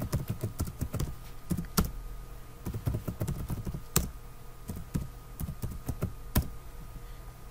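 Typing on a computer keyboard: irregular runs of key clicks with short pauses between them, and a few louder keystrokes.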